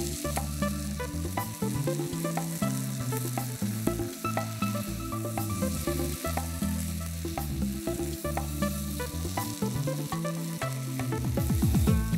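Raw chicken legs frying in thick, well-roasted masala in a nonstick kadai, sizzling steadily, while a wooden spatula stirs them with frequent short clicks and scrapes against the pan. A low hum that shifts in pitch runs underneath.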